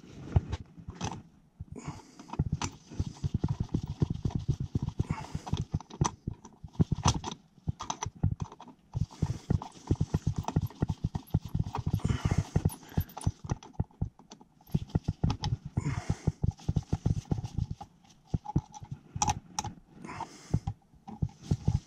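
A long run of irregular clicks, taps and knocks, with a few short lulls.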